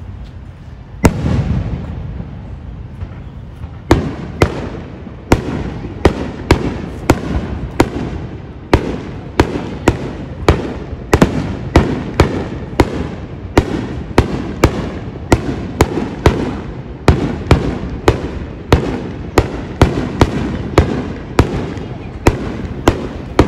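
Aerial firework shells bursting at a fireworks display. One sharp bang comes about a second in, then from about four seconds on a fast run of bangs, about two a second, with a low rumble between them.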